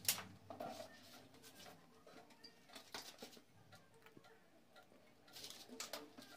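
Faint scattered clicks and light handling noise over a low hum, with a sharp click at the start and a quick cluster of clicks near the end.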